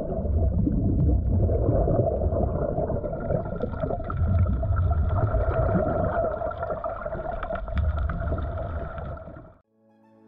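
Underwater sound of a diver breathing through a regulator on a surface air line. Exhaled bubbles rumble in swells about every three seconds over a steady hum, with scattered clicks from a scrubbing brush on the hull. It cuts off suddenly just before the end.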